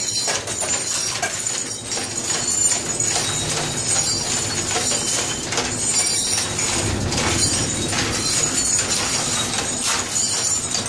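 Scrap iron clinking and clattering as it is scraped and raked out with a metal bar. A steady hum of running factory machinery sits under it.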